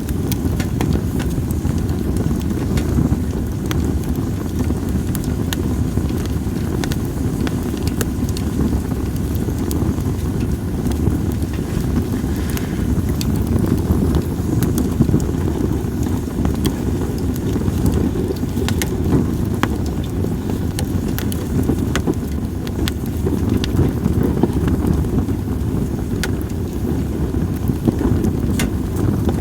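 Split sawtooth oak (kunugi) logs burning in a campfire, crackling with frequent sharp pops, over a steady low rumble.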